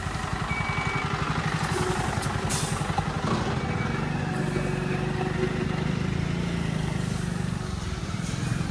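A motor vehicle engine running at low revs, a steady low throb.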